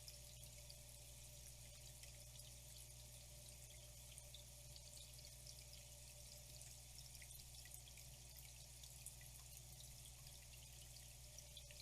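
Faint flowing water, a steady trickle with many small drips and splashes, over a low steady hum.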